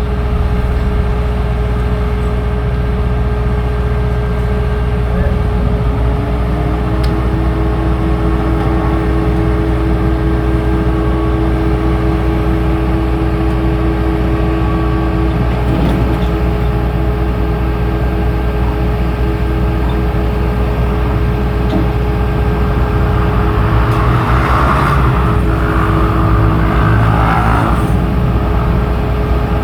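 An engine running steadily with a low hum and a held tone, with a swell of louder noise a little over twenty seconds in.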